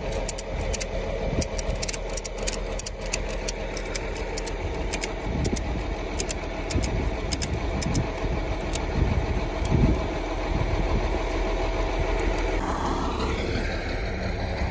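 Metal ratchet strap clicking in quick, irregular runs as it is cranked tight, thinning out about halfway through, over a steadily idling engine.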